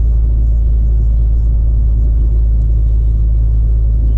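Steady low drone inside the cab of a Volvo FH16 truck on the move, engine and road noise running at an even level.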